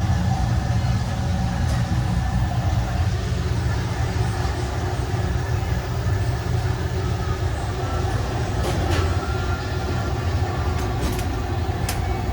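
Steady low mechanical drone of running machinery, with a few light clicks and taps of handling near the end.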